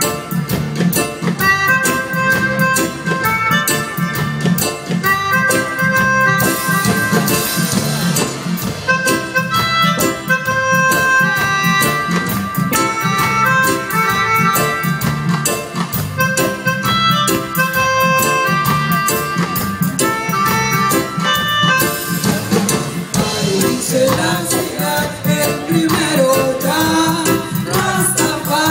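Live band music, a repeating melodic line over bass and drum kit in a steady groove. In the last few seconds a voice comes in, gliding in pitch.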